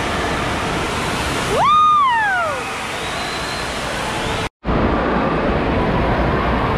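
Steady roar of an indoor waterpark: rushing water with a crowd mixed in. About two seconds in, one high call rises, holds and slides down, likely a shout. Near the middle the sound cuts out for a moment, then comes back steadier, with a deeper rumble.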